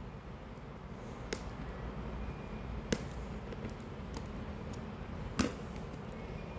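A few light, sharp taps or clicks, three of them clear, the last the loudest, over a low steady background hum: a product box being handled.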